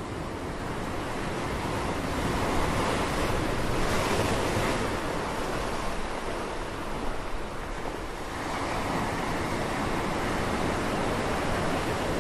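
Sea surf washing onto a shore: a steady rush of breaking waves, swelling a few seconds in and easing briefly later on.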